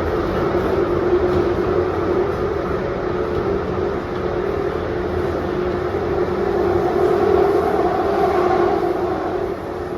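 Jubilee line 1996 Tube Stock train running between stations, heard on board: a steady rumble with droning tones. A higher tone joins about two-thirds of the way in, and the sound drops slightly just before the end.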